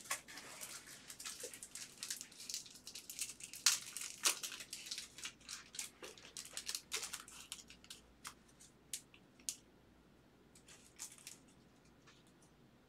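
Crinkling and rustling of plastic and foil as a trading card is slipped into a protective sleeve and the foil-wrapped packs are handled. The rustles come thick and fast for the first several seconds, then thin out to a few faint ticks.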